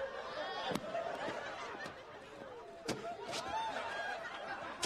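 Sitcom studio audience laughing, many voices at once, with a couple of sharp knocks from the on-screen slapstick.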